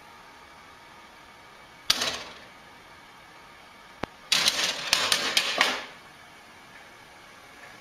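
Hard plastic clicks and rattling as a cat paws at a desktop computer's open CD drive tray: one sharp knock about two seconds in, a single click a couple of seconds later, then a quick run of clattering clicks lasting about a second and a half.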